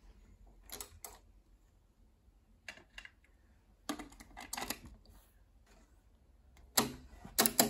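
Mechanical clicks and clacks of a Dual C844 cassette deck worked by hand: scattered single and paired clicks, a busier run of clacks a little past the middle as a cassette is pushed into the direct-load tray, and more sharp clicks near the end as the transport buttons are pressed.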